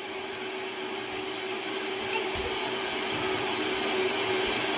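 Electric kitchen mixer running steadily with a constant hum, too loud, getting a little louder toward the end.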